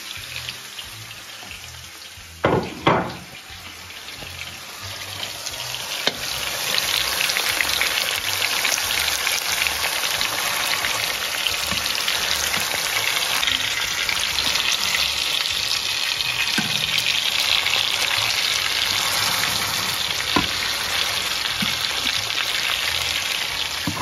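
Ground-beef hamburger patties sizzling as they fry in a pan, the sizzle swelling about six seconds in and then holding steady. Two short, loud sounds stand out about two and a half and three seconds in.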